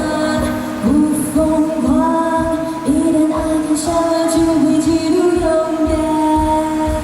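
Singing over a backing track: a voice holds long notes, sliding up into each, over a steady beat.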